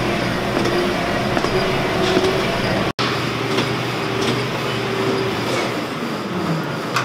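Stair-climber machine running, its motor-driven revolving steps rumbling and clattering steadily under a person's climbing footfalls. The sound drops out for an instant about three seconds in.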